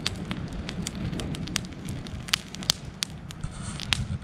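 Wood campfire crackling, with irregular sharp pops, the loudest a little past halfway and again near the end, over a low steady rumble.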